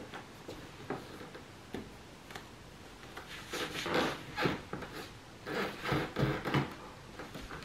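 A tri-suit being pulled on and adjusted: irregular rustling and scraping of the fabric and its zip, busier in the second half.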